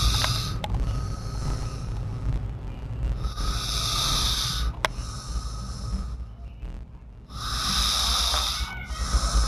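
A sleeping person snoring: three long, breathy snores, about three and a half seconds apart.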